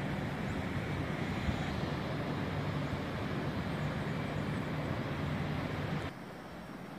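Steady rumble of distant city traffic with a low hum. It drops suddenly to a quieter hush about six seconds in.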